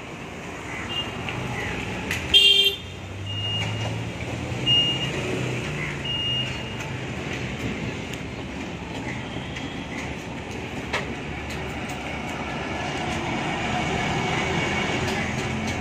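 Roadside street traffic: a vehicle horn gives one short toot about two seconds in, followed by the low rumble of a passing engine, over steady road noise with a few brief high chirps.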